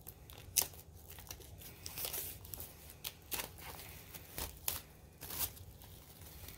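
Plastic shrink-wrap crinkling and tearing as it is pulled off a Blu-ray steelbook: scattered sharp crackles and rustles, the sharpest about half a second in.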